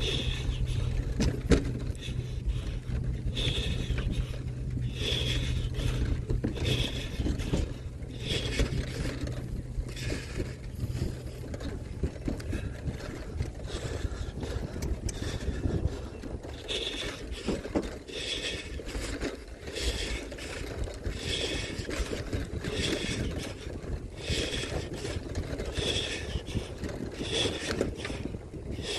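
Bicycle tyres rolling over the wooden planks of a bridge deck, a continuous rumbling clatter. A short high chirp or squeak recurs about every second and a half.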